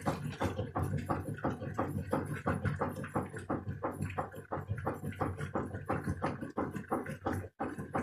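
Washing machine running: short, even strokes about four to five times a second over a low hum, with a brief break near the end.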